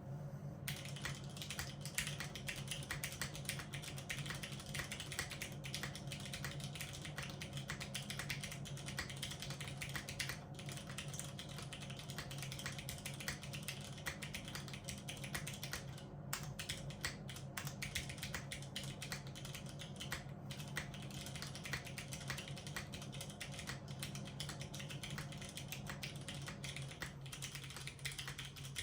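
Fast, continuous typing on a Safa 5.88 mechanical keyboard with unlubed Cherry MX Brown Hyperglide tactile switches on TX 65g springs, an o-ring-mounted aluminium plate and GMK doubleshot ABS keycaps. The typing starts about half a second in and has brief pauses about 16 and 20 seconds in, over a steady low hum.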